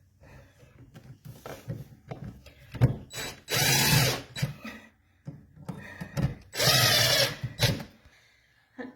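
Power drill-driver run in two bursts of about a second each, driving in the outlet's mounting screws to fasten it into the wall box, with handling knocks and clicks between.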